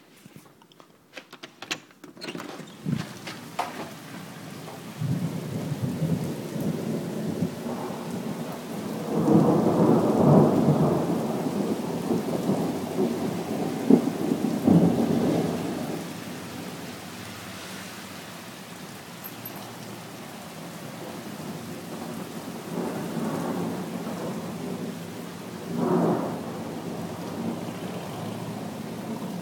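Thunder rumbling over steady rain: a long, loud peal builds about nine seconds in, with sharp cracks within it, and dies away by about sixteen seconds; a shorter peal follows near the end.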